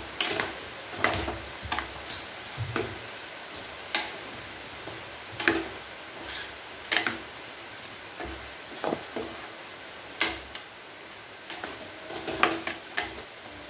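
Metal spoon clinking and scraping against a metal cooking pot while stirring chicken pieces into masala powder. The knocks come irregularly, roughly one a second.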